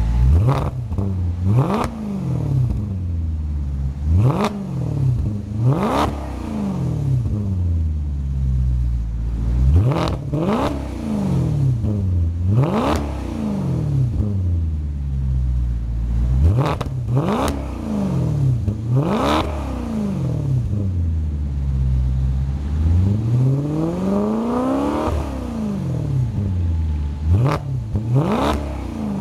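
2009 Maserati Quattroporte S's Ferrari-derived 4.7-litre V8, heard at its quad exhaust tips, being blipped repeatedly from idle. The revs climb sharply and fall straight back, about a dozen times, with one slower, longer rev late on.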